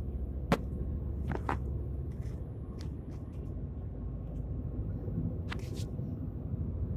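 Steady low rumble aboard a moving ferry, from its engines and wind over the deck. A few sharp clicks and rubs from fingers handling the phone come through, the loudest about half a second in and a pair around a second and a half in.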